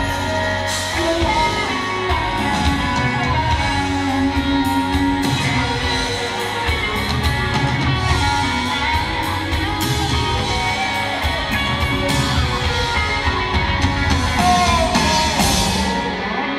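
Live rock band playing through the stage sound system: electric guitars and drums with frequent cymbal crashes, with some singing. The cymbals drop out near the end.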